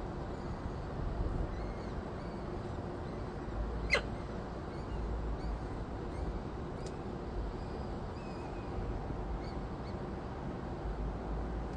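Steady wind and low rumble on a falcon nest-box microphone, with faint short high bird chirps scattered through and one short sharp call or click about four seconds in.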